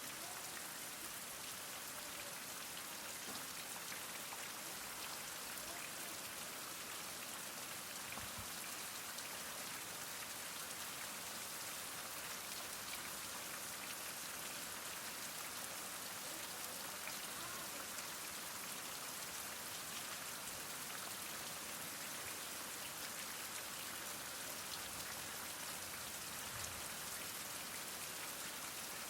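Heavy rain falling steadily, an even hiss of many drops with no thunder.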